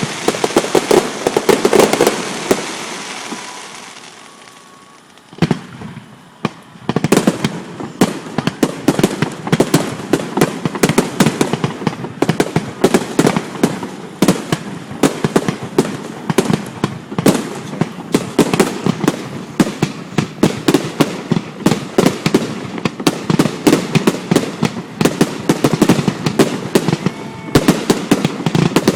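Fireworks display: rapid volleys of bangs and crackling shells. The volley dies away about two seconds in, leaving a brief lull, and from about six seconds on a dense barrage of overlapping bangs keeps going.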